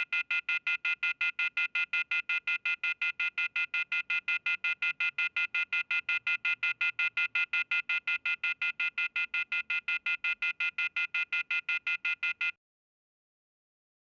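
Rapidly pulsing electronic beep on two steady pitches, an even run of many short beeps in the manner of a telephone signal, cutting off suddenly near the end.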